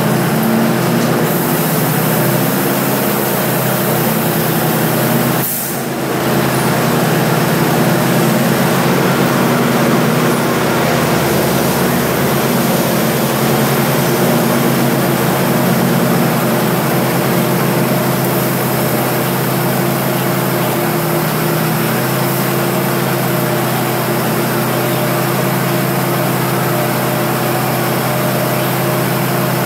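Diesel train engine idling, a steady drone with a constant low hum, dipping briefly about five and a half seconds in.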